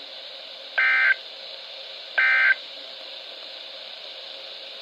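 NOAA Weather Radio SAME data bursts from a 12-991 weather radio's speaker: two short data bursts, each about a third of a second and about 1.4 s apart. They are the last of the three end-of-message (NNNN) bursts that close the Required Weekly Test. A steady hiss of radio static runs between and after them.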